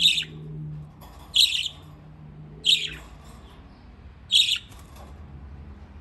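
Budgerigar giving four loud, sharp, high-pitched chirps, each about a quarter of a second long and spaced roughly a second and a half apart.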